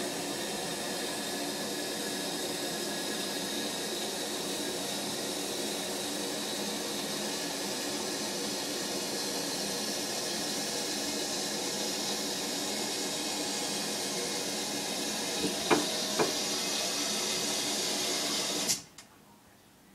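Toilet cistern refilling after a flush: the fill valve hisses steadily, with a couple of sharp clicks, then shuts off abruptly near the end.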